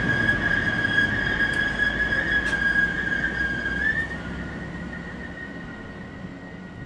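Elizabeth line Class 345 Aventra train running into the platform and slowing: a steady high-pitched whine over a low rumble, which steps up slightly in pitch about four seconds in and then fades as the train slows to a stop.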